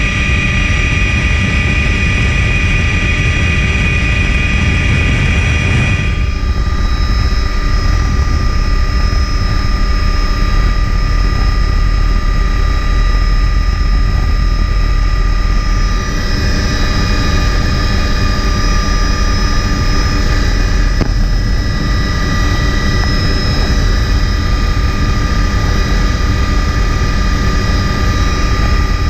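Helicopter in flight: a loud, steady drone of rotor and engine with several steady whining tones above it. About six seconds in, the high hiss drops away and the whine shifts in pitch.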